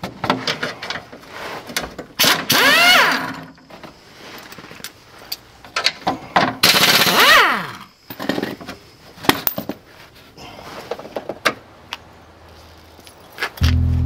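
Hand tools working stuck, rusted steel brake lines on a 2000 Chevrolet Suburban: scattered metal clicks and knocks, with two loud metal squeals that fall in pitch, about two and a half seconds in and again around seven seconds.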